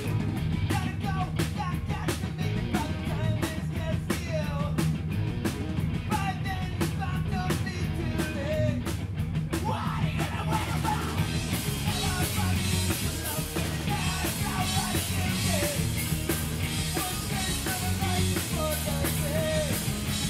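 Rock band playing live: electric guitars, bass guitar and drum kit driving a steady beat. About halfway through the sound fills out and gets brighter, with the cymbals washing over the top.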